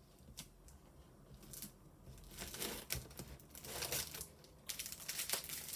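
Packs of craft paper and stickers being handled, crinkling and rustling in scattered sharp crackles that grow busier over the second half.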